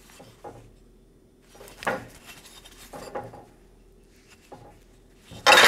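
A thick welded aluminium part being handled and shifted on a metal welding table: a few light knocks and scrapes about a second apart, then a louder clatter of metal on metal near the end.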